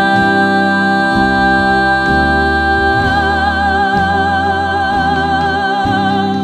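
A woman sings one long, high held note, steady at first and then with vibrato from about halfway, over low instrumental accompaniment.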